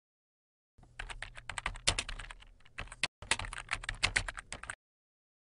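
Computer keyboard typing: a quick, uneven run of key clicks that starts about a second in, breaks off briefly just after three seconds, then carries on and stops shortly before the end.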